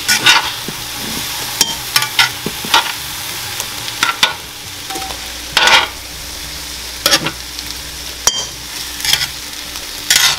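Oil sizzling steadily in a cast-iron frying pan, with several sharp clinks of metal tongs against the pan and a stainless steel bowl as roasted tomatoes are lifted out.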